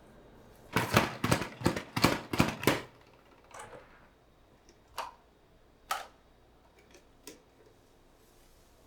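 A quick run of about eight sharp knocks, roughly four a second, then three or four single clicks a second or so apart.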